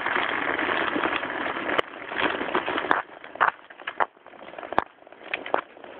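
Trek 1.2 road bike descending a slippery road: steady wind and tyre noise that drops off about halfway, followed by scattered knocks and rattles as it goes over the rough surface.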